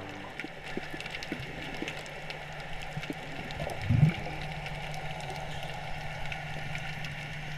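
Underwater ambience heard through a camera's waterproof housing: a steady low hum with scattered faint clicks and crackles, and a short low thump about four seconds in.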